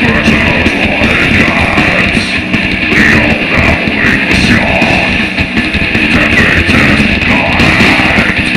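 Death metal band playing live through an outdoor PA, with heavy distorted electric guitars to the fore; loud and continuous.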